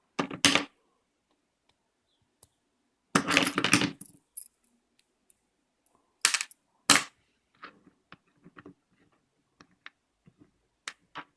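Small metal car door lock parts, tumbler wafers and the key, clicking and clattering as they are handled and swapped. There is a short clatter near the start, a longer rattle about three seconds in, two sharp clicks around six and seven seconds, then scattered light ticks.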